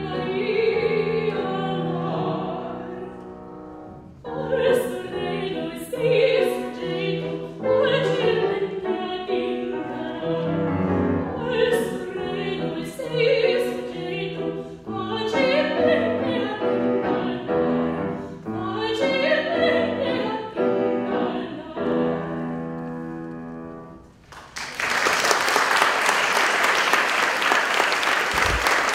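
Mezzo-soprano singing a classical song with piano accompaniment, in phrases that rise and fall. The song ends about 24 seconds in, and the audience breaks into steady applause for the last few seconds.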